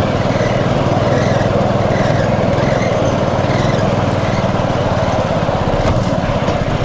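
Small engine of a motorized rail trolley running steadily as it rolls along the railway tracks.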